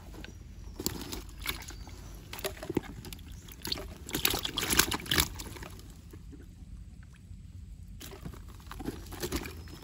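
Hands handling a mesh fish trap among dry leaves and twigs: irregular rustling, scraping and small knocks, busiest a few seconds in, a brief lull, then more near the end.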